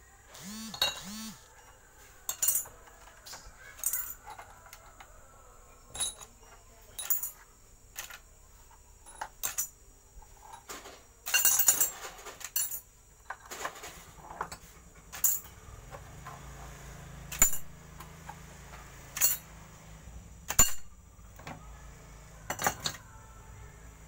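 Small metal tools and compressor parts clinking and clattering as they are picked up and set down by hand, in sharp separate clinks every second or two, with a denser rattle of several clinks just before the middle.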